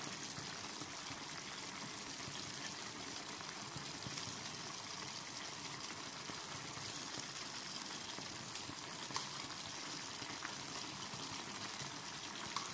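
Chicken adobo simmering in its sauce in a pan, a steady bubbling hiss, with two brief soft knocks near the end as potato cubes are set into the pan.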